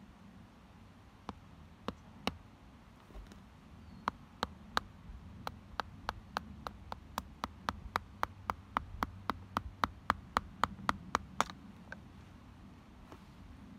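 A wooden baton taps the spine of an Anglo Arms 7-inch laced knife, driving the blade into a wooden spear shaft to split out a notch. A few scattered taps come first, then a steady run of about three sharp knocks a second from about four seconds in until near the end.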